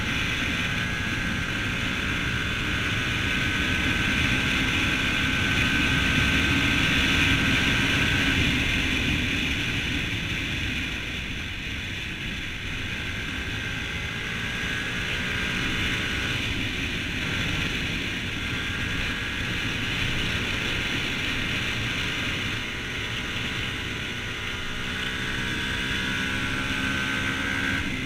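Yamaha WR125X's single-cylinder four-stroke engine running under way, its pitch rising and falling with the throttle through the bends, over steady wind noise.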